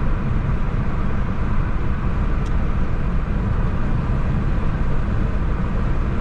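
Steady low rumble of a vehicle on the move: engine and road noise, unchanging in level and pitch.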